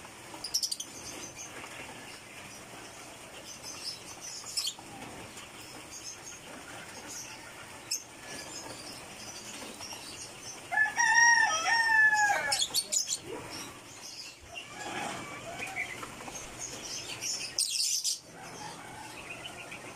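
A loud, drawn-out bird call of several arched notes, about two seconds long, near the middle, over faint scattered high chirps from small birds. A few brief noises break in along the way.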